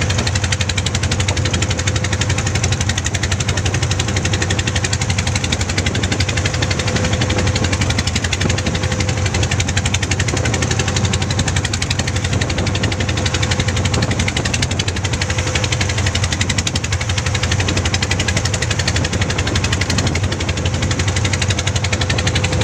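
A wooden fishing boat's inboard engine running steadily while under way, with a fast, even knocking pulse.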